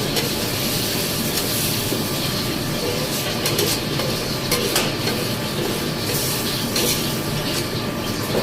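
Steady sizzling from a pan of spinach sabji cooking, with scattered sharp clicks of a spoon or spatula against the pan.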